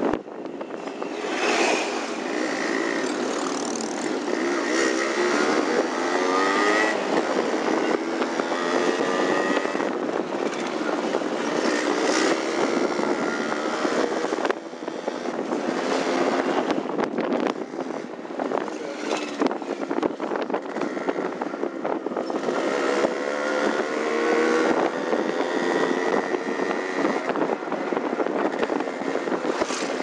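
Two-stroke motorcycle engines running on the move, their pitch repeatedly rising and falling as they rev up and ease off.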